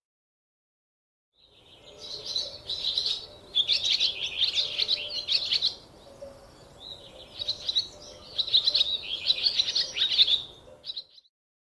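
Small songbird chirping and twittering in rapid high notes, starting about a second and a half in, in two long stretches with a short lull between them.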